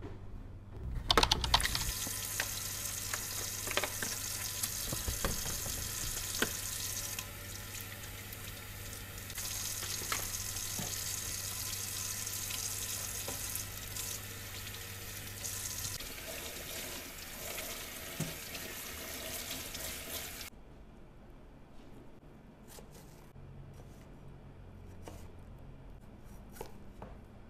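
Kitchen tap running into a stainless steel sink as strawberries are rinsed under it, the stream splashing and shifting as hands move through it. It shuts off suddenly about three quarters of the way through, and soft knife taps on a wooden chopping board follow as strawberries are sliced.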